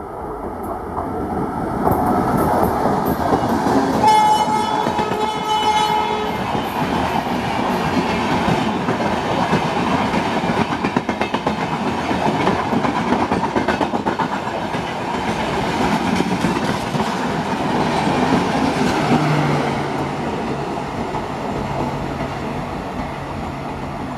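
An electric locomotive and its LHB passenger coaches pass at speed. The locomotive sounds its horn once, about four seconds in, for roughly two seconds. The coaches then rumble by with a fast clatter of wheels over the rail joints.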